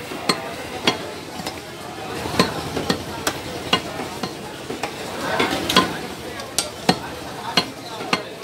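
Meat cleaver chopping beef on a wooden chopping block: a series of sharp, wet chops, about one to two a second, unevenly spaced.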